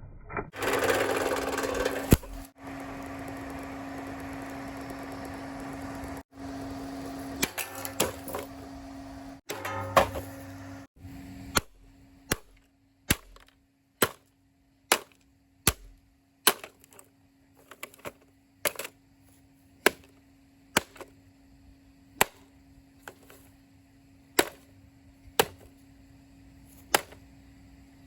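Vintage Hoover table fan running with a steady electric motor hum. For the first ten seconds or so a noisy rattle and clatter sit over the hum. After that, sharp knocks come about once a second.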